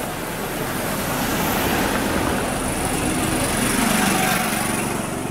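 A motor scooter's small engine passes close by, growing louder to about four seconds in and then fading.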